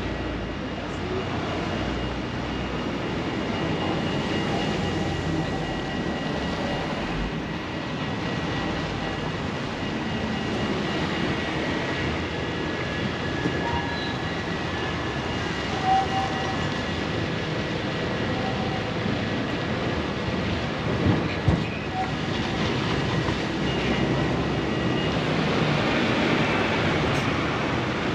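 A rail vehicle, such as a tram or train, running on its rails with a steady high whine over the rumble. A few short sharp knocks come in the second half.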